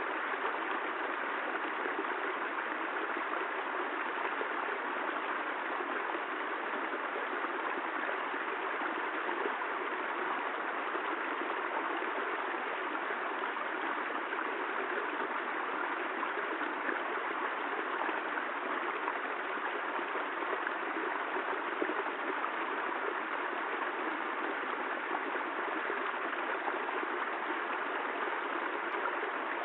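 Steady rain falling, a continuous even rushing hiss with no thunder or breaks.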